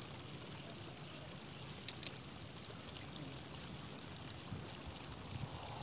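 Faint, steady rushing outdoor background noise, like running water, with two short faint clicks about two seconds in and a few soft low thumps near the end.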